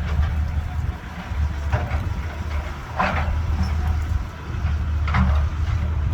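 Caterpillar 320BL hydraulic excavator's diesel engine running steadily as a low rumble, with three short noisy bursts over it about two seconds in, three seconds in and five seconds in.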